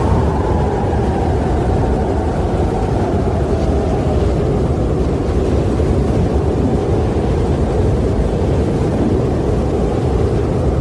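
Strong wind blowing steadily with a deep rumble, and a faint howling tone that slowly falls in pitch over the first few seconds.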